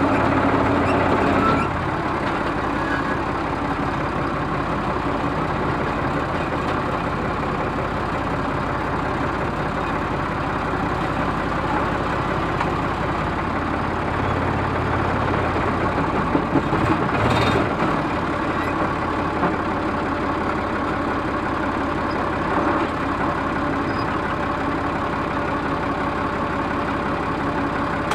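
Ford 3600 tractor's engine running steadily as the tractor travels along a dirt track. It is a little louder for the first second and a half, with a brief louder clatter about seventeen seconds in.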